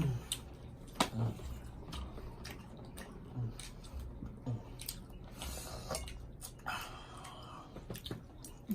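Eating sounds at close range: chewing, with scattered sharp clicks and small knocks.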